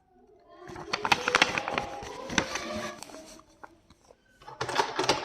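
Paper and plastic packaging of a blind bag being handled, crinkling and rustling in two spells, a longer one early and a short one near the end.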